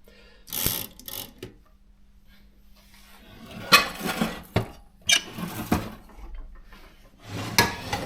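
Metal clicks and rattles of an old Consul manual typewriter being handled and adjusted, in three short bouts.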